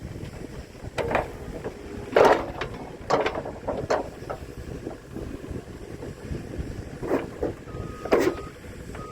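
JCB 85Z-1 midi excavator running with a steady low engine rumble, overlaid by about six irregular clanks and knocks from the working machine; the loudest comes a little past two seconds in.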